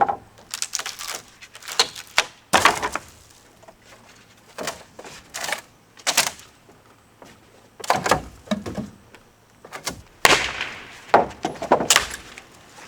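Irregular knocks and cracking bangs of wooden porch framing being broken apart during demolition, a dozen or so sharp strikes, some in quick clusters, with short gaps between.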